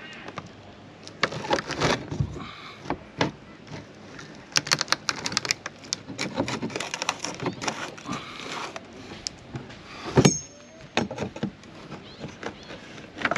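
Metal barbecue spatula scraping and prying under a plastic caravan roof hatch flange, working through the old silicone sealant: an irregular run of scrapes, clicks and knocks, with a quick rattle of clicks about five seconds in.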